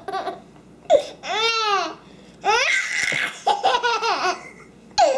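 Baby laughing hard in several bursts, with a long high-pitched squeal about a second in.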